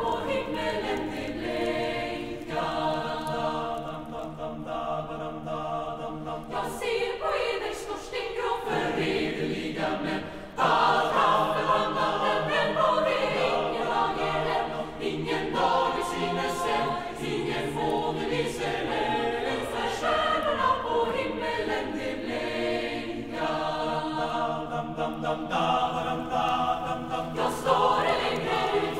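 Choir singing slow, sustained phrases of a Swedish Lucia or Christmas song, becoming suddenly louder about ten seconds in.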